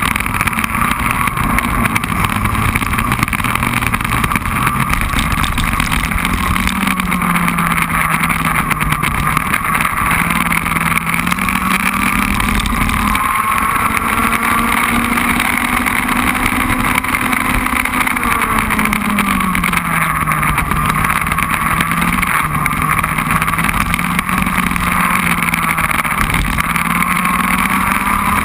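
Racing kart engine heard onboard, its note climbing as it accelerates and dropping sharply as it slows for corners, several times over, over a steady rush of wind and road noise.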